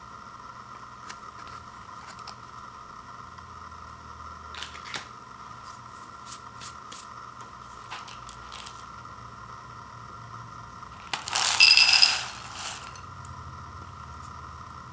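Dry macaroni poured from a cup into a ceramic bowl: a rattling clatter lasting about a second and a half, about eleven seconds in, with the bowl ringing. Before it come a few light taps and crinkles as the foil packet and cup are handled.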